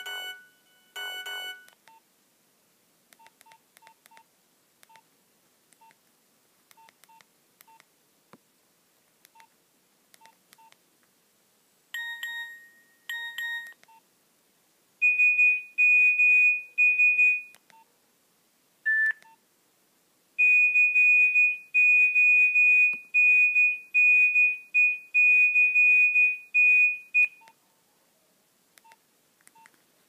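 Nokia 1112 phone speaker playing previews of its built-in monophonic message alert tones. It opens with two short chimes and faint keypad beeps about once a second as the menu is scrolled. Two more short chimes follow, then long runs of rapid high-pitched beeping, the loudest part.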